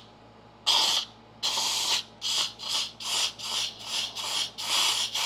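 Compressed-air blow gun hissing into the fluid inlet of a 1971 Cadillac front disc brake caliper in short repeated blasts, two longer ones and then quicker ones about two a second, to force the caliper piston out of its bore.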